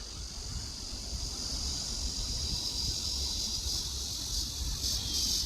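Electric ducted fan of a 70 mm FMS F-18 RC jet whining high in flight, growing louder toward the end, over wind rumble on the microphone.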